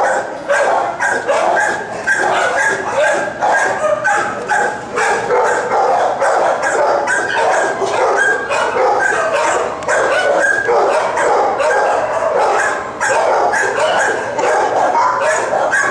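Many dogs in shelter kennel runs barking and yipping at once, a dense overlapping chorus that never pauses.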